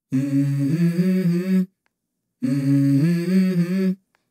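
A low voice humming a short melody twice, each phrase about a second and a half and stepping up in pitch, with a brief silence between: the opening of a song.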